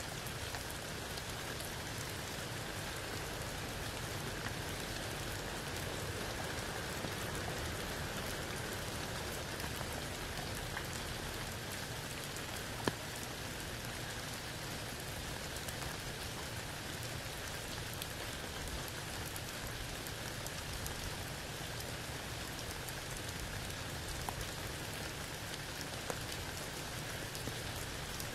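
Steady rain falling under a tree, with scattered single drops ticking close by and one sharper drop hit about halfway through.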